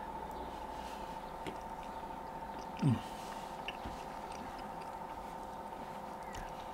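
A man chewing a mouthful of lasagne, with a short falling 'mmm' of appreciation about three seconds in. A steady background hum runs underneath.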